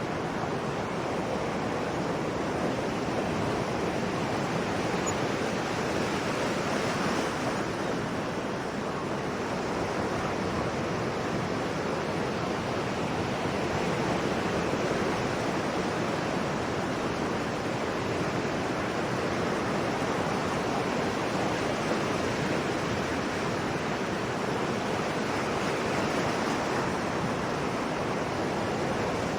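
Sea waves breaking and washing on a shore, a steady rushing surf with slow, gentle swells in loudness.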